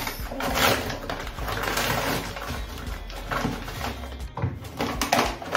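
Brown paper takeaway bag rustling and crinkling in irregular bursts as it is opened and handled.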